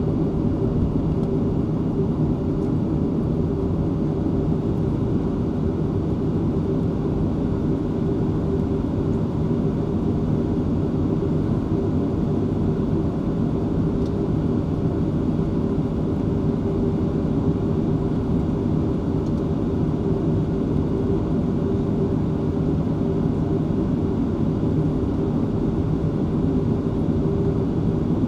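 Cabin noise of a Boeing 737-500 on the ground: its CFM56 turbofan engines running at idle, a steady low hum with a constant mid-pitched tone through it.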